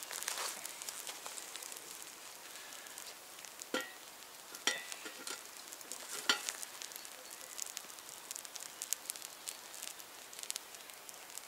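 Small campfire of embers crackling and hissing. Three sharper metallic clinks from the billycan's handle knocking against the hooking stick, about four, five and six seconds in, as the can is lifted out of the embers.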